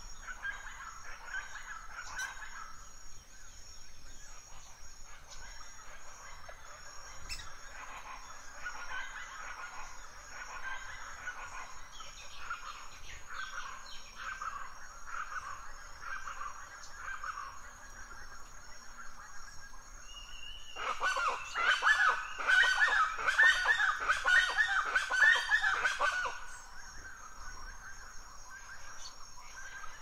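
Forest birds calling throughout, with a loud burst of rapid, chattering calls lasting about five seconds, starting about two-thirds of the way through.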